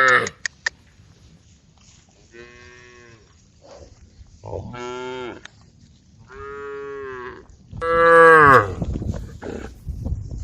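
Cattle mooing, calling to the herd: the end of one moo, then four drawn-out moos of about a second each, the last the loudest. A low rough noise follows the last moo.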